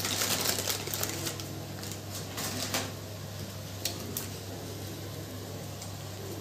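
Whole spices (cloves, cardamom, cinnamon) crackling and sizzling in hot oil in a kadai. The pops come thick for about the first three seconds, then thin out to a few scattered ones, over a steady low hum.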